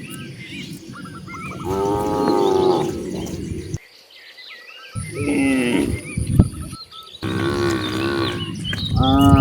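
Cattle mooing: four long, drawn-out moos, one after another, with a brief dead silence about four seconds in.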